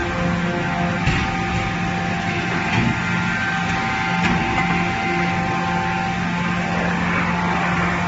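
Forging-line machinery running with a steady hum and drone, with a few brief knocks.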